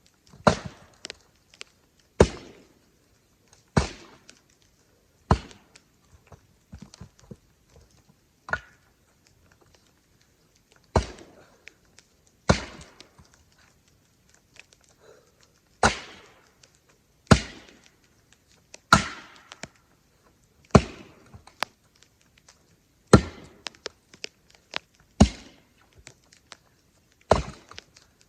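Axe chopping firewood: a sharp strike into the wood every second and a half to two seconds, about fourteen in all, with a couple of short pauses.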